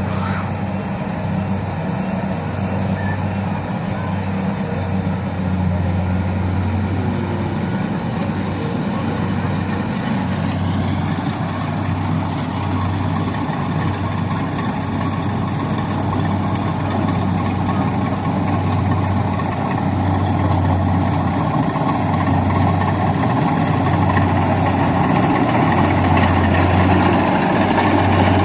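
Rice combine harvester's diesel engine running steadily: a low, even hum over dense machinery noise, growing a little louder near the end.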